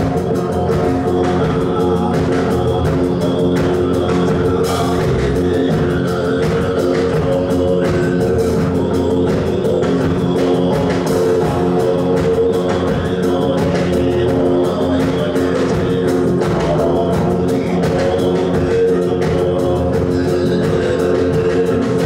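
Live folk-rock band playing: drum kit, electric guitars and a plucked long-necked lute over a steady droning pitch, with a man singing.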